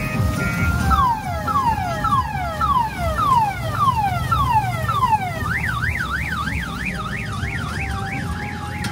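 Electronic siren sound effect from a kiddie ride's loudspeaker: a run of falling sweeps about two a second, switching about five seconds in to a fast up-and-down warble, over a steady low rumble.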